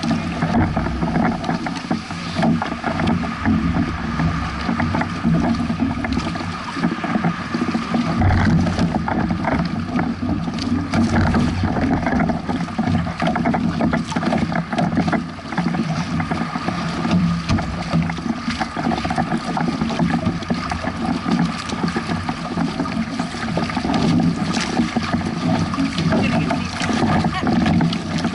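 Water rushing and slapping against a small sailing catamaran's hulls as it moves through choppy waves, with wind buffeting the microphone.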